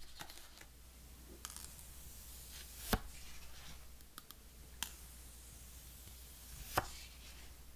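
Gloved hands handling iPhone 12 mini handsets and peeling the paper wrap off a screen: scattered light clicks and taps, with two sharper knocks about three seconds in and near the end.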